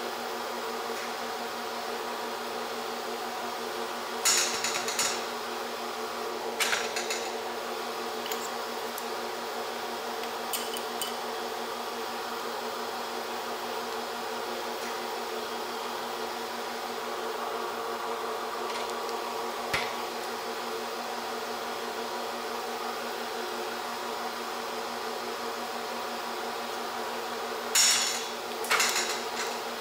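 Aluminum sheet being bent in a hand-operated sheet-metal brake: a handful of sharp metallic clanks, the loudest pair near the end, over a steady buzzing hum.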